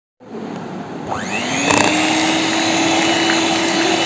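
Scarlett electric hand mixer starting up and beating heavy whipping cream with condensed milk in a glass bowl. Its motor whine rises in pitch over the first second and a half, then runs steady as the cream is whipped to a mild thickness.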